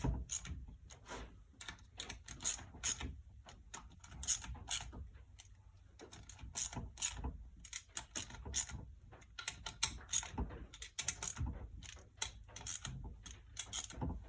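Hand ratchet clicking in quick runs as M6 bolts on the engine's cover are run in and lightly snugged.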